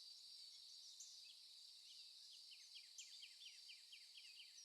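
Faint nature-ambience sound effect: birds chirping over a steady high hiss, with a rapid run of short falling chirps starting about halfway through.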